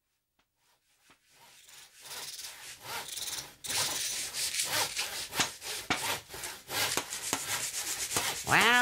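Rhythmic scraping strokes of wood being worked by hand, several strokes a second, fading in over the first two seconds: a toy-workshop sound effect.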